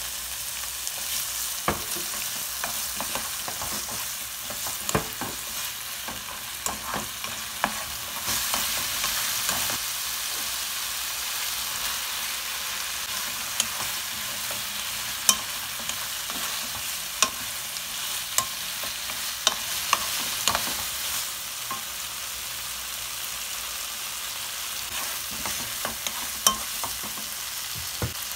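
Tofu, chili peppers and green onion sizzling in a frying pan with oyster sauce as they are stir-fried, with sharp taps and scrapes of the spatula against the pan scattered through the steady hiss.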